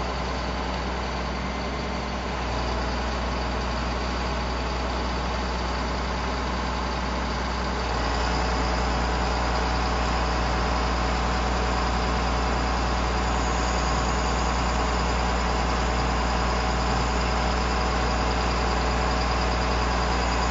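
Bucket truck engine running steadily while the boom is worked. The engine gets louder in two steps, about two seconds in and again about eight seconds in.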